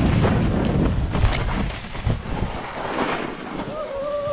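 Rushing air buffeting the microphone of a paraglider in flight, strong at first and easing after a couple of seconds. Near the end a short pitched call sounds and falls away in pitch.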